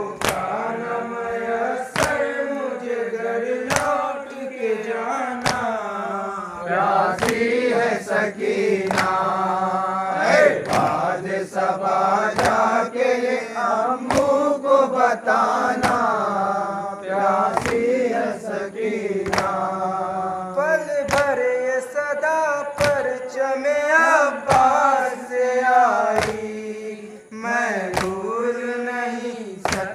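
Group of men chanting an Urdu noha lament in unison. Sharp chest-slaps of matam land about once a second, keeping the beat.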